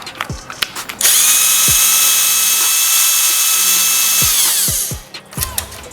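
A power screwdriver backing out a screw from a photocopier panel: a few handling clicks, then about a second in the motor starts and whines steadily for about three seconds before slowing and winding down.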